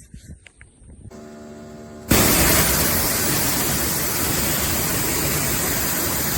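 Pressure washer spraying: after a few faint clicks and a brief humming tone, a loud, steady hiss of the water jet starts suddenly about two seconds in and holds.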